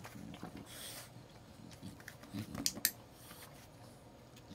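Dog-training clicker clicked once, a quick sharp double click (press and release) about two and a half seconds in, marking a rewarded nose touch. Before it, a short breathy hiss and soft handling and rustling noises.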